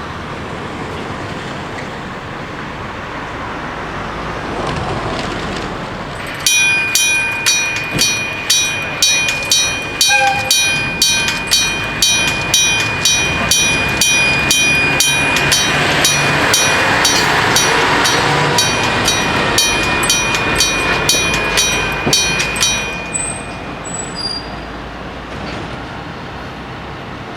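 Japanese level-crossing warning bell ringing, a steady electronic clang at about two and a half strikes a second, starting about six seconds in and cutting off about sixteen seconds later. Under the bell, the rumble of an approaching freight train swells in the middle.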